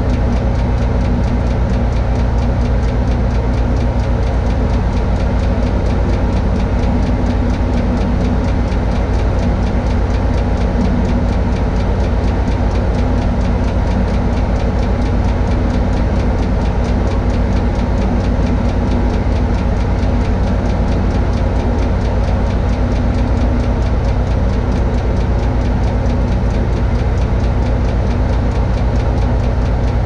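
Diesel engine of a Tadano ATF 180G-5 all-terrain crane running steadily at an even speed, with no revving.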